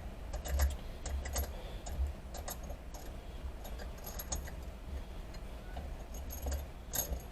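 Irregular metallic clicks and ticks as a Heli-coil thread tap is turned back out of a freshly tapped hole, busiest in the first couple of seconds and again near the end.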